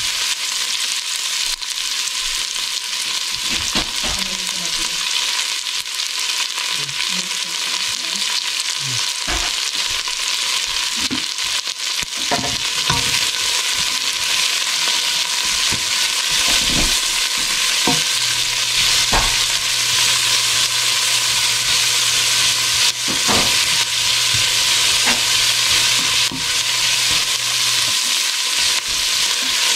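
Sliced onions and minced garlic sizzling in hot olive oil in a stainless steel pot, stirred with a silicone spatula that scrapes and knocks against the pot now and then.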